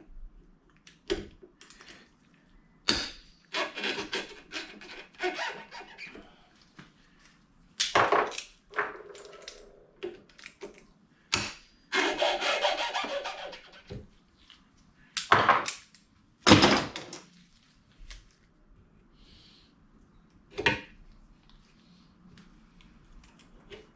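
Hand tools and metal parts being handled at a workbench: a string of separate knocks and clanks, with two longer stretches of scraping, the longer one about halfway through.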